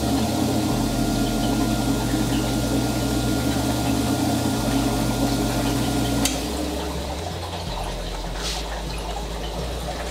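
Gryphon diamond wet band saw running wet, with a steady motor hum and the water-fed blade. It is test-running after new blade guides, a new top-wheel rubber band and new sponges were fitted. About six seconds in the hum stops with a click and a quieter water noise remains.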